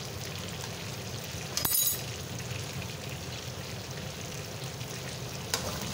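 Chicken pieces sizzling steadily in a little oil in a frying pan, with a brief metallic clink about one and a half seconds in.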